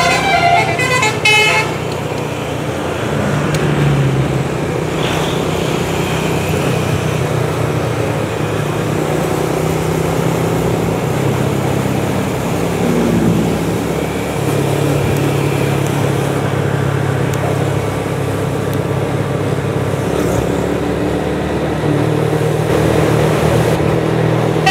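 A bus's multi-note musical air horn (telolet) plays a quick run of notes and stops about a second and a half in. A bus engine then runs steadily with road traffic noise.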